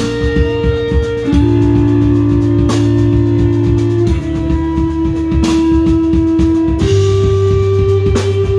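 Two electric bass guitars and a drum kit playing instrumental heavy rock live. The basses hold sustained notes that change every couple of seconds over busy drumming, with a crash about every two and a half seconds.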